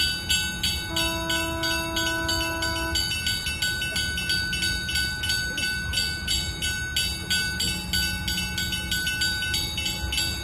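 Lift-bridge warning bells at the lowered traffic gates ringing in rapid, even strokes, about three a second, signalling that the bridge is opening. A horn sounds once for about two seconds near the start.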